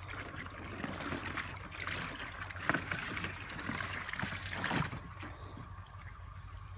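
A puppy wading and splashing in shallow water in a plastic kiddie pool, with a couple of sharper splashes about three and five seconds in; the splashing dies down after about five seconds.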